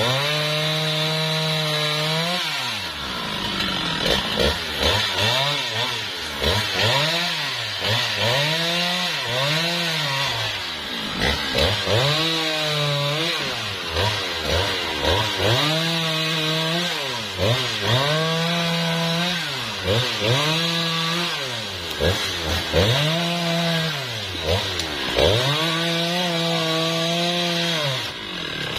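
Husqvarna 395XP two-stroke chainsaw being revved in short bursts over and over as it cuts teak wood, its pitch rising and dropping back with each burst and held high for a couple of seconds at the start and near the end.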